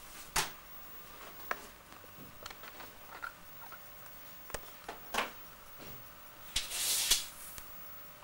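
Scattered light knocks and clicks of a small wooden nightstand cabinet as a toddler handles its door and rummages inside, with a brief rustling near the end.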